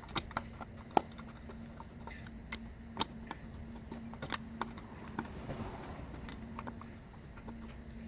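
Screwdriver driving taillight lens screws into plastic anchors on a C3 Corvette, making irregular small clicks and ticks, the sharpest about a second in, over a steady low hum.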